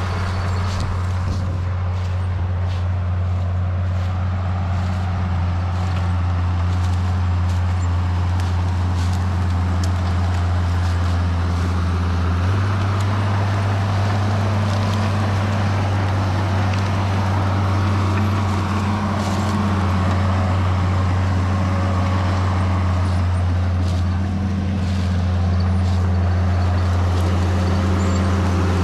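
Case 850K bulldozer's diesel engine running steadily as it works, a low drone whose pitch shifts a little about twelve seconds in, with faint cracks and knocks over it.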